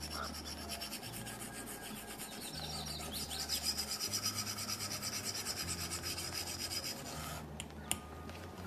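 Plastic stylus tip rubbing rapidly back and forth on a tablet's glass screen while scribbling and colouring in, fast strokes several times a second. The rubbing stops about seven seconds in, followed by a single sharp tap on the screen.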